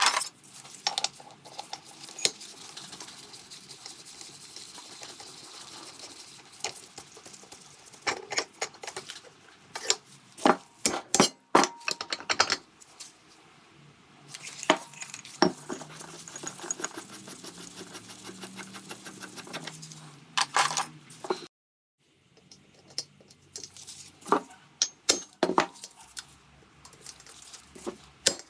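Metal hand tools and engine parts clinking and knocking as a Vespa PX150E engine is taken apart, some knocks ringing briefly, with a run of quick, even clicking about halfway through.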